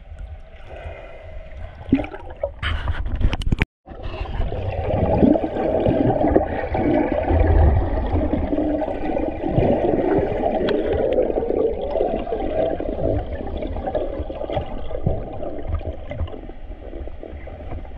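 Underwater sound as heard through a camera housing: a low rumble of moving water with bubbling and crackling. It cuts out for a moment nearly four seconds in, then comes back louder.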